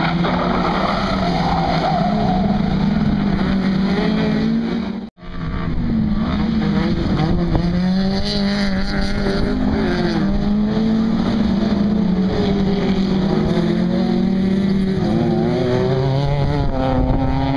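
Engines of several autocross race cars running hard on a gravel track, their pitch rising and falling as the cars accelerate and back off. The sound cuts out for an instant about five seconds in.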